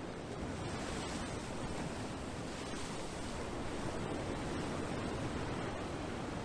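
Ocean waves washing ashore: a steady rush of surf with no single breaking crash standing out.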